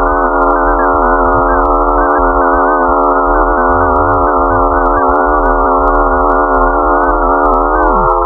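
Synthesized electronic sound effect: a dense cluster of warbling tones over a steady hum and a low rumble. Near the end some tones slide downward while others rise.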